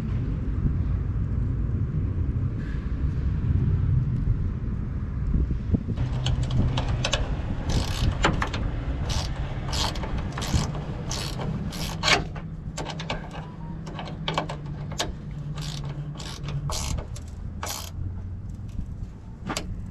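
A diesel engine running steadily, joined from about six seconds in by a string of sharp, irregular metallic clicks and clanks, roughly two a second.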